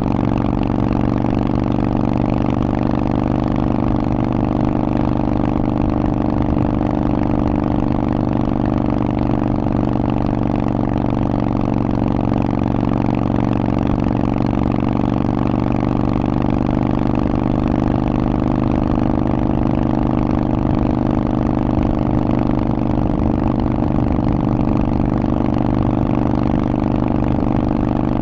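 Harley-Davidson Forty-Eight's air-cooled 1200 cc V-twin running through a Vance & Hines aftermarket exhaust, holding one steady engine speed with no revving. The exhaust note is loud and even, with an unchanging pitch.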